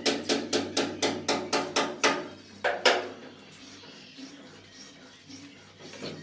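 Steel trowel tapping and slapping cement mortar onto the back of a ceramic tile: a quick run of sharp taps about four a second, two louder knocks just before the three-second mark, then softer scraping as the mortar is spread.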